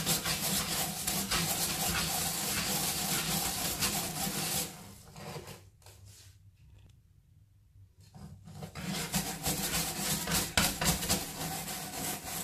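Round bristle brush scrubbing the floor of a spa bath in rapid back-and-forth strokes. The scrubbing stops for a few seconds in the middle, then starts again.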